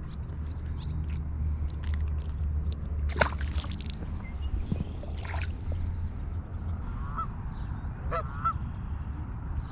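Geese honking: a few short calls starting about seven seconds in, over a low steady rumble.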